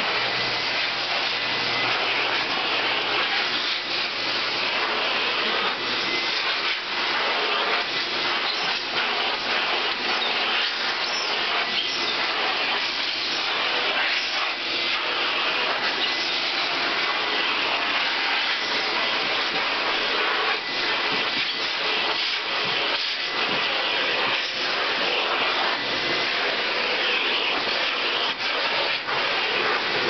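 Vacuum cleaner running steadily with a loud rush of suction and a faint high whine, its hose nozzle being drawn over a dog's coat to suck up loose hair.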